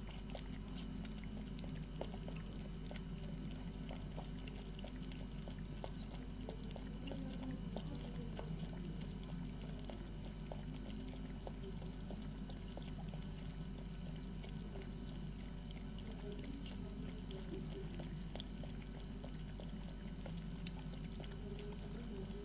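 Two cats lapping milk from a bowl: a steady run of small wet ticks over a constant low hum.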